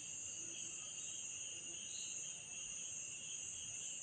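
Steady, shrill insect chorus at two high pitches, unbroken throughout.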